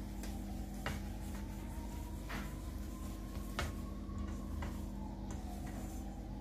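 Silicone spatula scraping and knocking against a stainless steel bowl while stirring a dry flour-and-ghee cookie mixture, with several short sharp knocks spread through. A steady low hum underneath.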